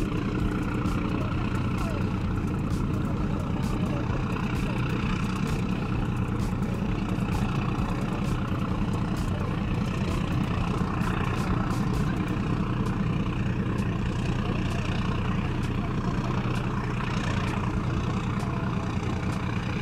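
Engines of a high-speed passenger ferry running with a steady low drone as it comes in slowly toward the pier, with indistinct voices in the background.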